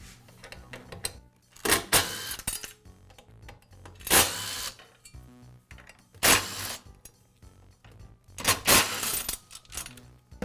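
Four short bursts of metal-on-metal rattling and scraping as the inner blade guard and its fasteners are worked off a Milwaukee circular saw, over soft background music.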